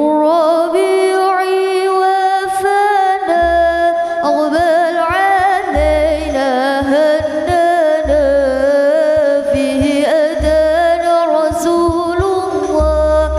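Girls' voices singing an Islamic sholawat melody into microphones, amplified through a small PA sound system, with a deep bass beat about every two seconds.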